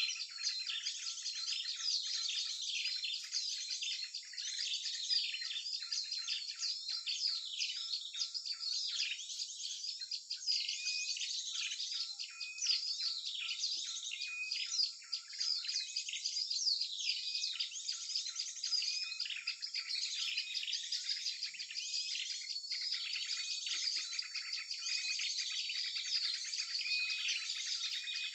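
Continuous, dense chorus of many small birds chirping and trilling over one another: a mixed small-bird lure call used to draw birds to a trap. The sound is thin, with no low end. For a stretch in the middle, one short note repeats about once a second through the chatter.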